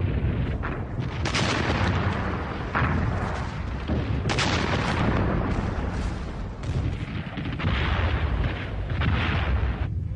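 Battle sounds of explosions and gunfire: a continuous low rumble broken by a string of sudden loud blasts, one every second or two.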